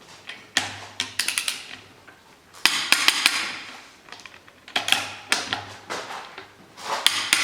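Ratchet wrench clicking in short bursts of sharp metallic clicks, four bursts about two seconds apart, as the cylinder-head bolts are tightened.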